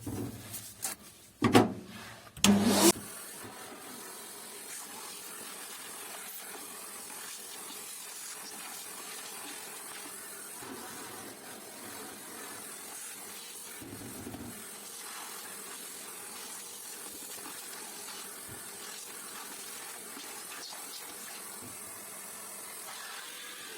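A few sharp knocks from handling the laser toner cartridge in the first few seconds, then a steady, even hiss that holds unchanged for about twenty seconds while the old toner is cleared out.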